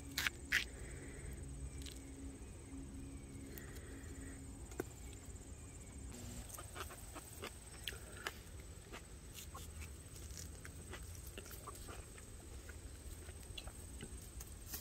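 Scattered small clicks and taps of a folding multitool knife cutting up a peach by hand, with two sharper clicks right at the start, over faint sounds of chickens nearby.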